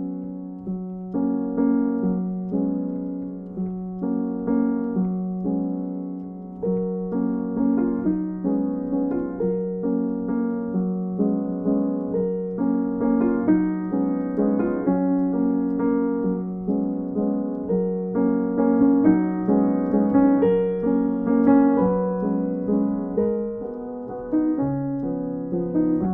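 Background music: solo piano playing a steady run of notes over a held low note.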